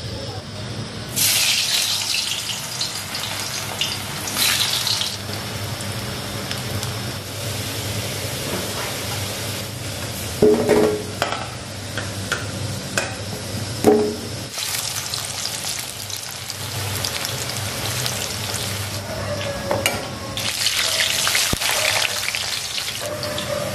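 Hot oil sizzling in a wok as food fries, in waves of loud hissing that swell and fade several times, with green chillies deep-frying near the end. A steady low hum runs underneath, and two brief pitched calls sound about halfway through.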